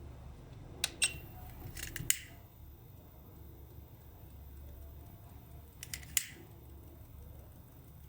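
Sharp clicks in two clusters, about one to two seconds in and again about six seconds in, the last click of each trailing off in a brief hiss, over a steady low hum.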